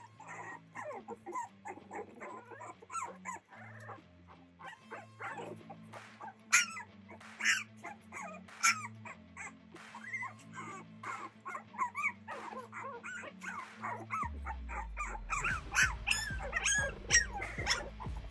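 A litter of Boston Terrier puppies playing, with many short high yips, whines and squeals, some sharp yips louder than the rest. Background music runs underneath, its bass getting heavier near the end.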